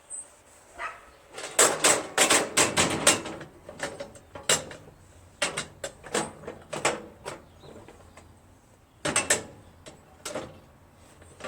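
Lawn tractor seat brackets knocking and clanking against each other as they are handled and lined up to compare bolt holes. A quick cluster of sharp knocks comes between one and three seconds in, then scattered ones, and two more about nine seconds in.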